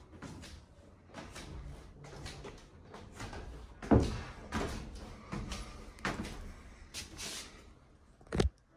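Footsteps climbing wooden stair treads and crossing the landing, a hollow knock with each step. The loudest knock comes about four seconds in, and a sharp knock comes near the end.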